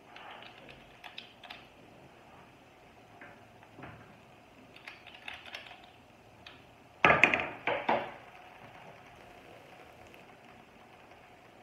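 Minced garlic frying in hot butter and olive oil in a pan, with scattered small pops and crackles. About seven seconds in comes a brief run of a few much louder sharp knocks.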